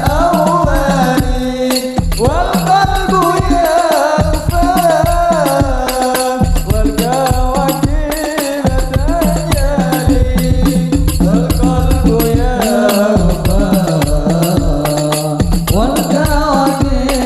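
Music played loud through a sound system for a sound check: a bending, ornamented melody over a heavy, steady bass beat.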